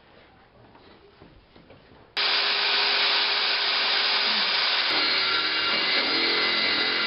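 About two seconds of quiet, then a handheld circular saw starts abruptly and cuts steadily through an OSB board.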